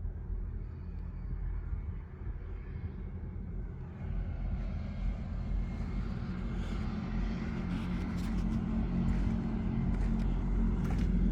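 A vehicle engine running steadily with a low hum, getting louder from about four seconds in, with a few faint knocks later on.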